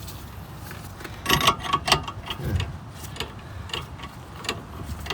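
Metal clicks and clinks of a ratchet and long socket being worked on a rear brake caliper bolt, irregular, with a cluster of louder clicks about a second and a half in.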